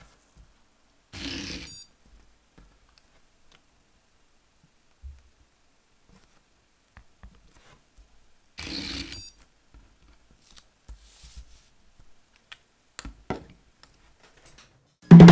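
Two short electronic beeps from an Edison educational robot, about seven and a half seconds apart, with faint clicks and taps between them. Music starts right at the end.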